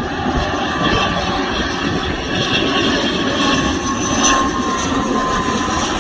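Passenger airliner's engines running as it passes: a loud, steady rushing noise with a faint whine that slowly drops in pitch.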